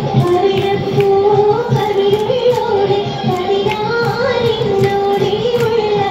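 An Oppana song (Mappilappattu) sung in a high child's or woman's voice, one wavering melody line held on long notes, over a steady beat of handclaps.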